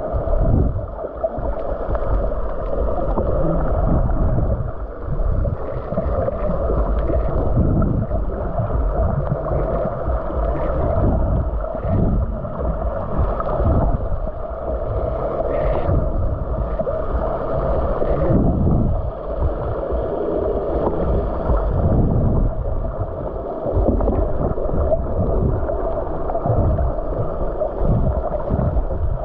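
Muffled water sloshing and gurgling, with irregular low surges, as heard by a camera in a waterproof housing at or under the water's surface.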